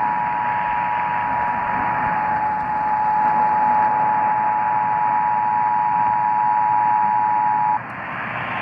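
Emergency Alert System two-tone attention signal, 853 Hz and 960 Hz sounding together, heard through an AM radio receiver over a steady hiss of static. The steady tone cuts off suddenly near the end, leaving only the static.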